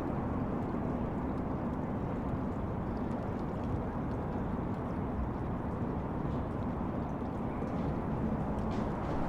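Steady hum of heavy city traffic from a busy multi-lane avenue.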